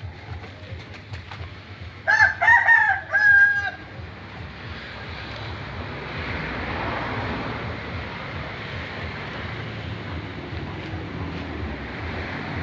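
A rooster crows once about two seconds in, a call in three short linked parts with the last note held. After it a steady rushing noise swells up and stays.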